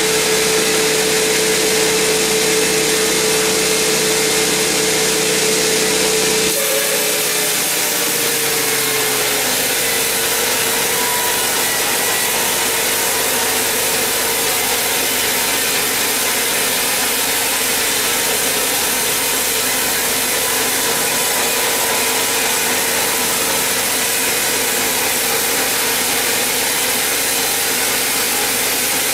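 Large vertical band sawmill ripping through a huge mahogany log: a steady, loud hiss of the blade in the wood over a constant whine from the saw. The whine dips briefly about seven seconds in, where the sound changes abruptly, then carries on.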